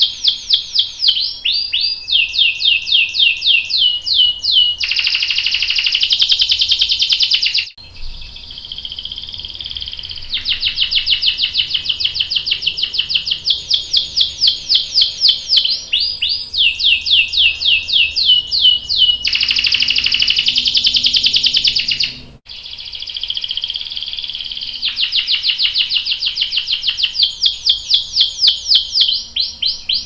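Domestic canary singing: long runs of rapid, repeated falling whistle notes, twice breaking into a dense buzzy rolled trill about three seconds long, the long roll (ngerol) prized in canary song.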